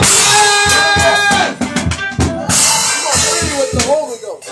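Live church worship music: a drum kit keeping a steady beat with bass drum and snare, under sustained keyboard or organ notes and singing voices.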